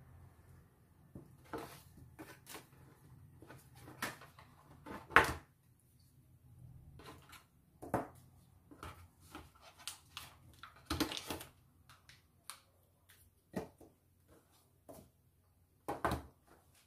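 Unboxing handling noises: a cardboard phone box, its insert and packaged accessories being lifted out, rustled and set down on a table, in scattered taps, knocks and rustles. The loudest is a sharp knock about five seconds in, with a longer rustle around eleven seconds.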